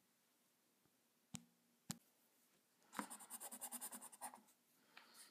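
Two light taps, then a white pencil scratching quick, rapid hatching strokes across drawing paper for about a second and a half, laying in highlights.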